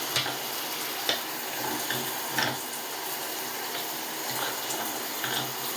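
Shower water running in a steady hiss, with a few short sharp clicks spread through it.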